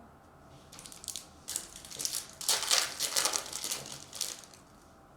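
Foil wrapper of a Topps Chrome trading-card pack crinkling and crackling as it is torn open and handled, in irregular bursts for about three and a half seconds.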